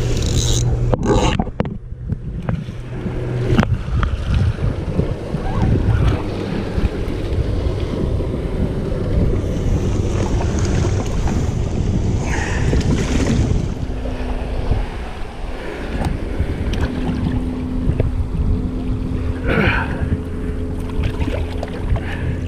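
Wind buffeting the microphone over seawater washing against the rocks, a steady low rumble with uneven surges.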